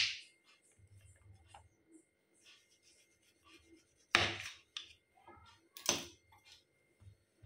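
Kitchen knife cutting through the ends of a bottle gourd and knocking on a bamboo cutting board: one cut right at the start and another about four seconds in. A last sharp knock comes about two seconds later, with faint rubbing and handling in between.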